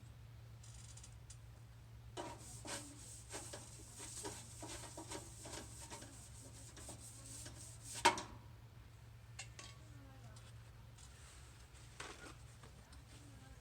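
Hand rubbing and scraping on an old toolbox: a run of short scraping strokes, a few a second, then a single sharp knock about eight seconds in and a few sparser strokes. A low steady hum runs underneath.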